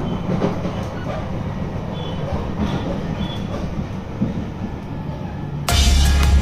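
Steady rumble of a train running along the rails, heard from inside the carriage. Near the end, loud electronic music with a heavy bass beat cuts in suddenly.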